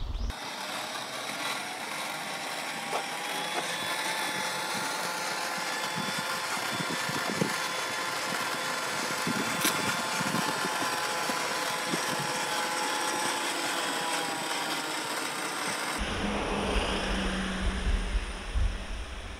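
Traction Hobby KM5 1/8-scale 4WD RC crawler's electric motor and gears whining steadily as it drives on paving. About three-quarters of the way in the whine cuts off and outdoor background noise takes over.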